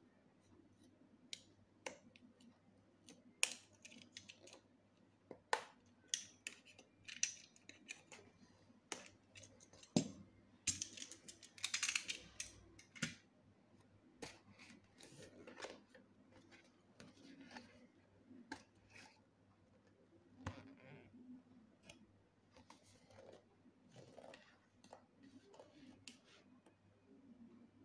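Box cutter slitting the seal on a cardboard box, then the cardboard box being handled and its lid opened: scattered clicks, scrapes and rustles, with a longer scratchy stretch about ten to twelve seconds in.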